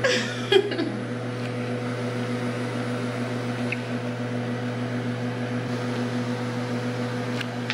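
Steady low machine hum with a constant pitch, starting and stopping abruptly.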